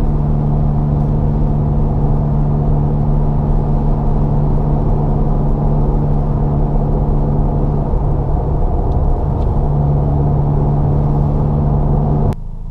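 Cabin sound of a VW MK7 GTI's turbocharged 2.0-litre four-cylinder with a center-exit cat-back exhaust, cruising at highway speed: a steady, even engine and exhaust drone under road and tyre noise, quiet overall. The pitch wavers briefly past the middle, and the sound cuts off abruptly near the end to a much quieter, lower level.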